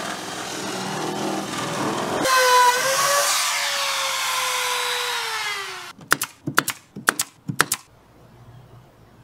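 Compact router with a flush-trim bit running and cutting plywood paneling along a wall frame. It is a loud whine that sinks slowly in pitch under load and stops about six seconds in. A quick run of about seven sharp clacks follows.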